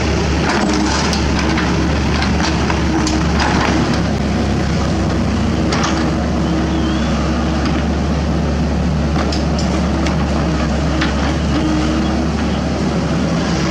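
Sany SY75 mini excavator's diesel engine running steadily under working load, with scattered knocks and scrapes as the steel bucket works among broken concrete slabs.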